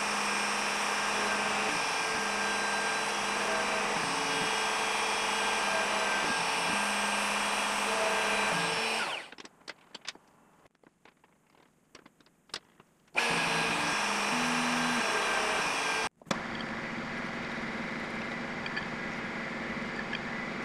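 A router spindle on a DIY CNC router runs at high speed with a steady whine while spotting hole locations in an aluminium plate. It spins down about nine seconds in, leaving a few light clicks as the plate is handled, then starts again. Near the end a milling machine's spindle runs steadily, drilling the holes.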